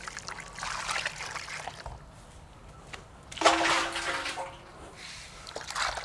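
Water pouring into a steel bowl of tiny raw shrimp while hands swish and rub them to wash them, splashing in bursts, the loudest about three and a half seconds in.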